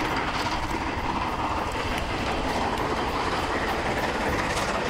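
Steam-hauled train running along the track: a steady rumble with a fast, even beat of about three to four strokes a second.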